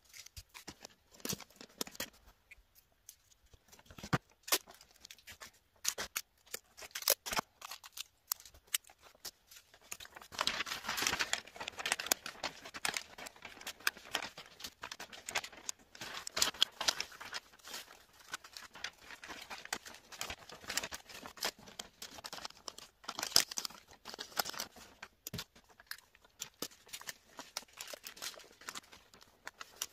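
Shiny wrapping paper crinkling and rustling as it is folded and creased around a gift box, with scattered snips and clicks of scissors. The crinkling is loudest in a stretch starting about ten seconds in.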